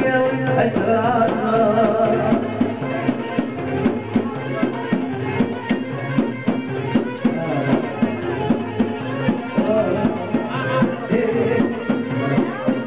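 Middle Eastern-style folk music: a melody instrument over a steady, quick drum beat.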